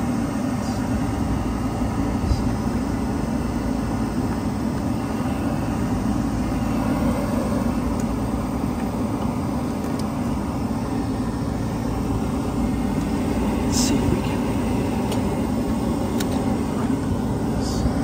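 Steady mechanical drone of running rooftop HVAC equipment, with a few light clicks in the second half.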